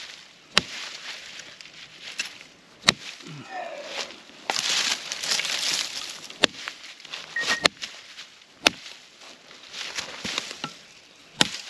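Footsteps through brush and leaf litter while gathering firewood, with sharp snaps of sticks and twigs breaking about every one to two seconds between stretches of rustling.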